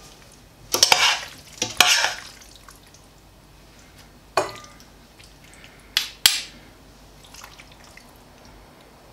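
Metal spoon scooping dressed salad in a stainless steel pot: two short scraping swishes about a second apart, then three sharp clinks of the spoon against the pot, one about four seconds in and two close together about six seconds in.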